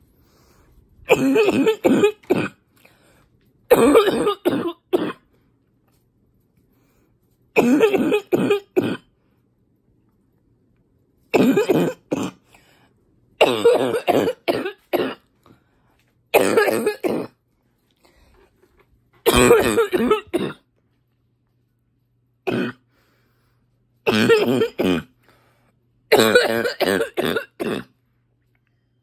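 A woman's congested, barking cough, coming in about ten fits of several rapid coughs each, a few seconds apart. She puts the congestion down to allergies.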